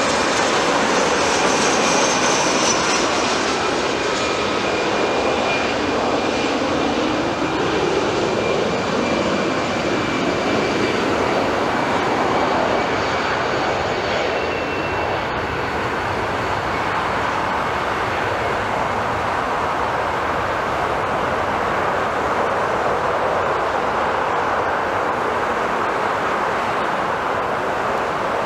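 Twin jet engines of an Airbus A320-family airliner at takeoff power on the takeoff roll: a loud, steady rush with high whining fan tones. The pitch falls as the jet passes and the sound eases slightly as it draws away down the runway.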